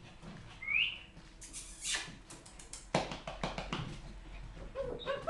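Poodle puppy giving a short, high, rising squeal about a second in and a brief whimper near the end, amid scuffling and a run of clicks and knocks.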